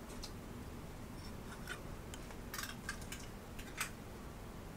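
Faint scattered light clicks and taps of a kitchen utensil against a measuring cup and saucepan as packed brown sugar is added to the sauce.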